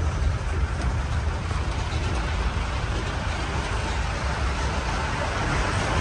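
Open-top safari canter driving along, a steady rumble of engine and road noise.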